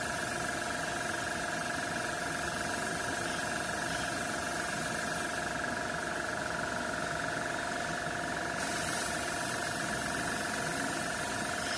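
Small airbrush compressor motor running steadily with a hum of several fixed tones and a hiss of air; the high hiss thins out for about three seconds midway.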